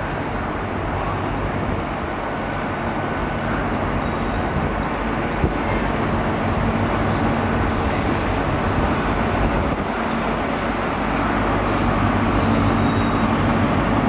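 Class 43 HST power car's diesel engine running as the train rolls slowly into the platform, a steady low hum that grows louder as it draws nearer, strongest in the last few seconds.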